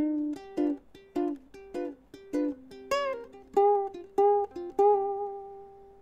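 Wooden ukulele played fingerstyle: a slow melody of single plucked notes, the last one left ringing and fading near the end. Raw recording without effects.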